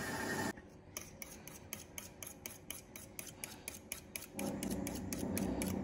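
Eggs being beaten in a stainless steel bowl: a utensil clicking against the metal in a fast, even rhythm, about seven strokes a second. Near the end a louder, steady sound with a low hum takes over.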